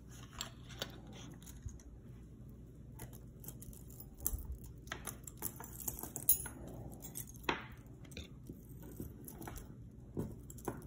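Jewelry being handled: scattered light clicks and clinks of a metal chain necklace and small pieces moving against each other, with faint rustling.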